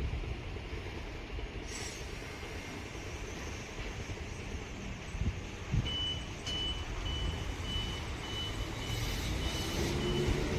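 Low steady station rumble; about six seconds in, a high electronic warning beep starts, repeating about twice a second, as a train approaches. Near the end the approaching train's motor hum rises in pitch.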